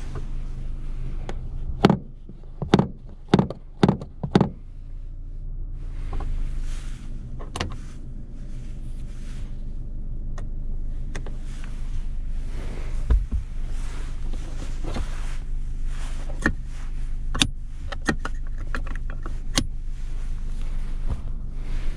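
A 2007 Mitsubishi Lancer's 1.6-litre 4G18 four-cylinder engine drones steadily, heard from inside the car while driving. About two seconds in there is a quick run of five sharp clicks or knocks, and single clicks are scattered through the rest.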